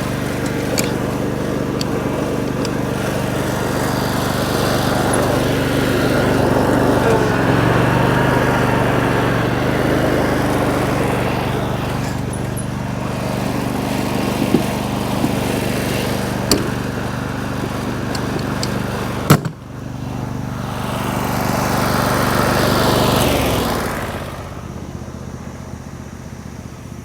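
Small engine running steadily, with a single sharp knock about two-thirds of the way through. The engine hum drops away about three seconds before the end.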